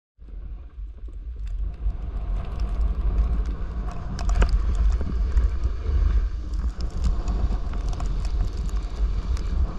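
Wind buffeting the microphone of a body-mounted camera on a snowboarder riding downhill, a steady low rumble that builds over the first couple of seconds. Over it comes the hiss and scrape of the snowboard sliding and carving on snow, with scattered sharp scratches.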